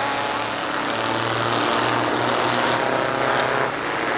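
Two-stroke Detroit Diesel engines of a pack of racing semi trucks running hard at high revs, several engines sounding together with pitch shifting as they pass.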